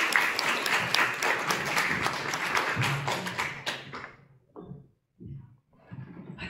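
Audience applauding, many hands clapping at once, fading out about four seconds in; a few soft thumps follow.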